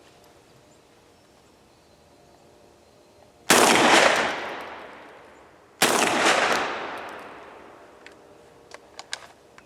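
Two shots from a Centurion BP12 12-gauge bullpup shotgun, a little over two seconds apart, each followed by a long fading echo. A few light clicks come near the end.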